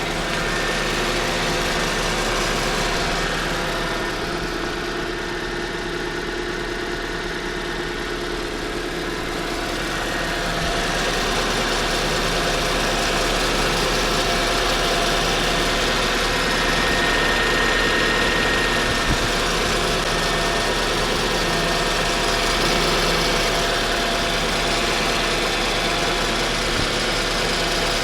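Chevrolet Aveo's F14D4 1.4-litre four-cylinder engine idling after a cold start, with a thin steady whistle over the engine noise. The whistle is the cold-start symptom being shown.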